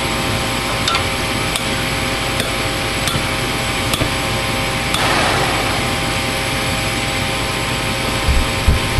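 Gas furnace's draft inducer fan running steadily with a hum, with faint regular ticks in the first few seconds and a brief rush of noise about five seconds in.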